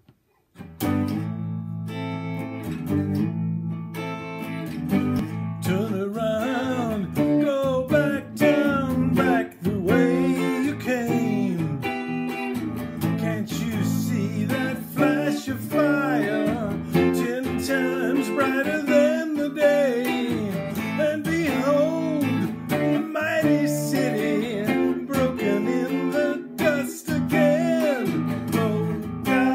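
Semi-hollow-body electric guitar playing an instrumental intro, picked and strummed chords with melodic single notes, starting about a second in.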